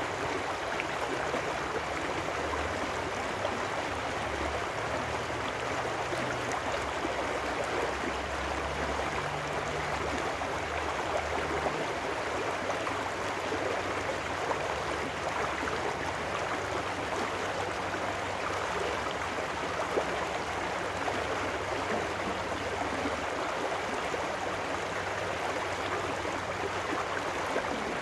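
Small trout stream rushing over rocks in a shallow riffle: a steady, even rush of water that does not change.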